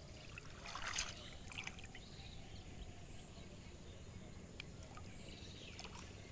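Water splashing and trickling as hands work a bamboo duari fish trap half-sunk in shallow water, with the loudest splash about a second in and a couple of light clicks later on.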